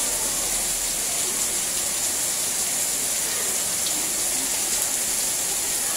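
Heavy rain pouring down steadily: an even, unbroken hiss of a downpour.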